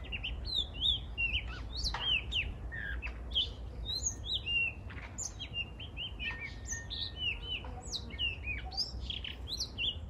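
Male Cape rock thrush singing: a run of short, varied whistled notes that bend up and down in pitch, over a low steady background rumble.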